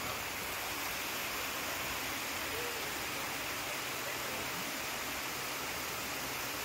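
Steady, even rush of water from a waterfall.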